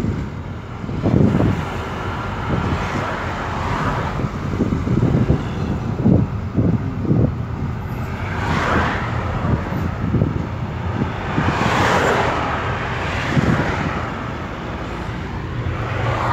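Steady road and engine noise heard from inside a moving vehicle, swelling twice near the middle.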